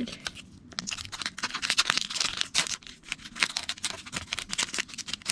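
A foil Pokémon booster pack being torn open by hand, its wrapper crackling and crinkling in quick, irregular bursts.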